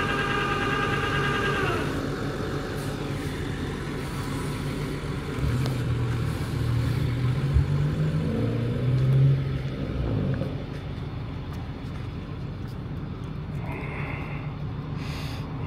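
Flatbed tow truck's winch whining as it draws the car up the bed, winding down and stopping about two seconds in. A few seconds later a deeper engine rumble rises and runs louder for about five seconds, with a single knock partway through, then settles.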